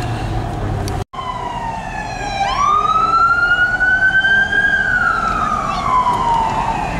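Emergency vehicle siren in a slow wail: after a brief dropout about a second in, its pitch sweeps up sharply and then slides slowly back down over several seconds.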